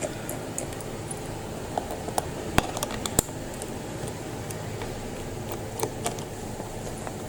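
Small scattered clicks and taps of a screwdriver working the screws out of a Lenovo Yoga 500 laptop's bottom cover, with two sharper clicks about two and a half and three seconds in, over a steady low hum.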